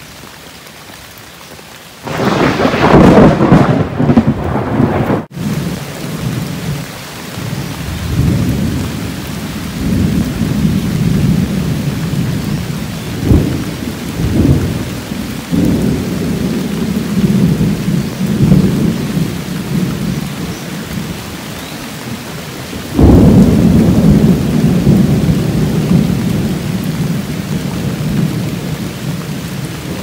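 Heavy rain falling steadily, with thunder: a sudden loud peal about two seconds in that rolls on in long low rumbles, swelling and fading, and a second loud peal later on.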